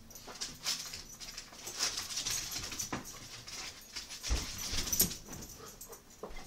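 Beagle puppy running and scrabbling on a hardwood floor, its claws clicking and skittering in quick irregular patters, with two dull thumps about four and five seconds in.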